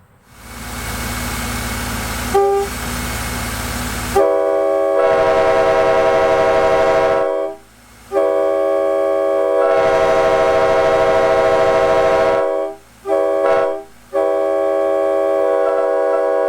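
Nathan K5L five-chime train air horn, built from mixed narrow-font, raised-letter and wide-font bells, blown on compressed air. It hisses for about four seconds, with a brief tone about two and a half seconds in, before the full chord sounds. The chord then comes in four blasts: two long ones, a short one, and a final long one.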